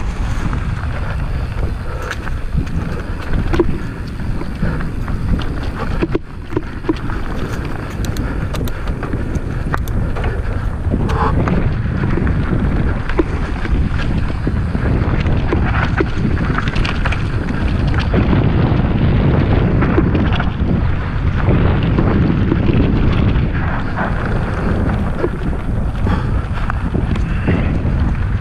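Mountain bike riding a dirt trail strewn with dry leaves: wind rumbling on the camera microphone over the tyre noise, with frequent short clicks and rattles from the bike.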